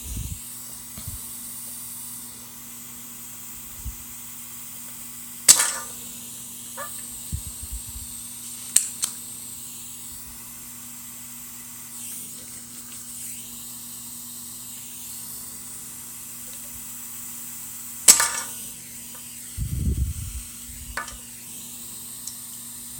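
Spring-loaded solder sucker fired twice, a sharp snap each time, about five seconds in and again near the end, pulling molten solder off a mouse microswitch's leads. A steady low hum and a few small clicks and knocks lie underneath.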